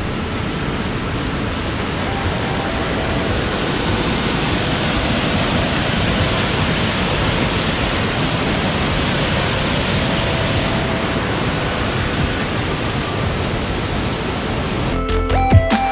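Steady rushing of falling water from a waterfall, slightly louder midway. An electronic music track with a beat comes in near the end.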